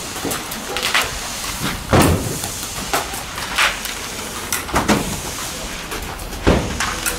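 Heavy cement bags being handled by hand at a truck: irregular dull thumps and knocks, about one a second, over a steady background hiss.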